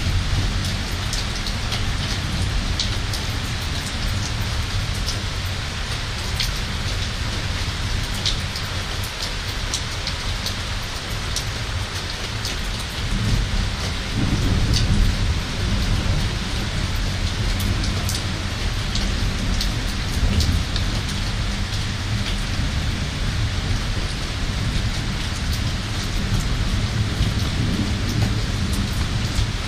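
Thunderstorm: steady rain with many drops ticking sharply on nearby surfaces, and a low rumble of thunder that swells about halfway through and again a couple of times later.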